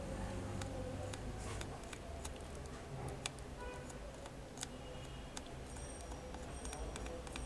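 Faint, irregular small clicks and ticks over a low steady hum, as a soldering iron tip is worked along the pins of a phone display's connector to resolder pins that had come loose.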